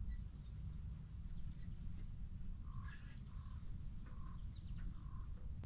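Faint bird calls, a short note repeated about four times a little under a second apart, over a steady low rumble like wind on the microphone.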